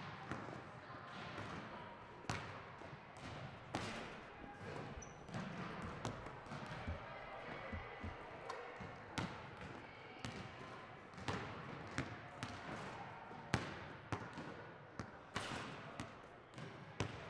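Basketballs bouncing on a hardwood gym floor: sharp, irregular impacts about one or two a second, in a large gym.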